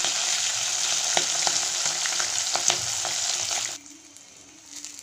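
Fish pieces sizzling in hot oil in a kadhai, with a metal spatula clicking and scraping against the pan now and then as the pieces are turned. The sizzle cuts off suddenly near the end.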